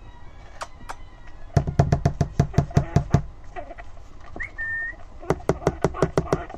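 Syrian hamster screaming in angry defence: two bouts of rapid pulsed squeals, about six a second, with a brief high whistle-like squeak between them.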